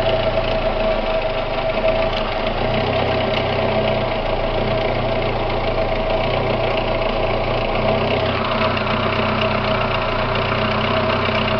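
A 2001 Pontiac Sunfire's 2.2-litre four-cylinder engine idling steadily, warm after about ten minutes of running, heard from beneath the car.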